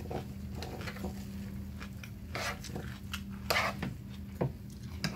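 Eating sounds: a fork clicking and scraping in a clear plastic clamshell salad container, with short crackles as the plastic is handled and chewing between them. A steady low hum runs underneath.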